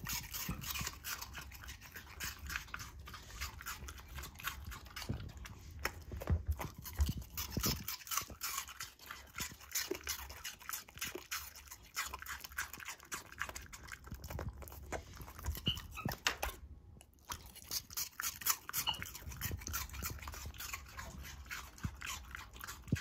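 Miniature schnauzer puppy chewing a piece of apple: a long run of crisp, quick crunches, with one short break about two-thirds of the way through.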